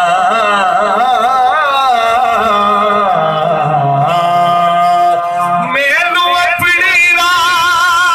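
A man singing Punjabi rubaiyat into a microphone: a long, ornamented melodic line with a wavering pitch, climbing higher about six seconds in.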